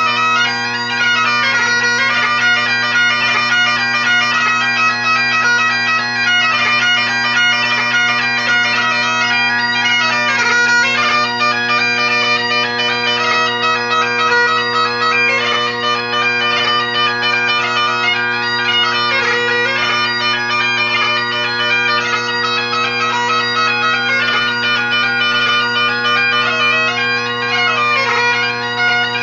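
Great Highland bagpipe played solo: steady drones under a continuous chanter melody with quick grace-note ornaments.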